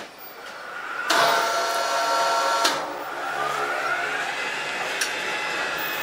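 Electric overhead crane hoist motor whining as it carries a large hardwood slab on wire slings. The whine starts abruptly about a second in and breaks off briefly near three seconds. It then rises in pitch and holds steady, with a single click about five seconds in.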